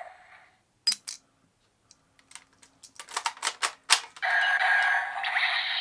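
Plastic clicks from the Gabu Gabu Revolver toy gun being handled and worked, a quick run of them between about two and four seconds in. Then the toy's electronic sound effect plays loudly through its small built-in speaker.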